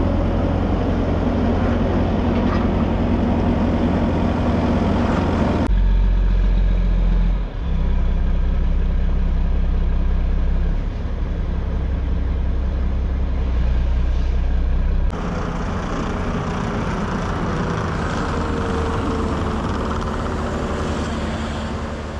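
Heavy machinery engine running steadily with a strong low rumble, in three stretches that change abruptly about six seconds in and again about fifteen seconds in.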